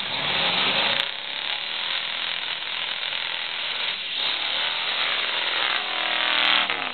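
Lifted mud-bogging pickup truck's engine running hard at high revs as its tyres churn through a deep mud pit. It gets loudest and its pitch shifts as the truck passes close by near the end.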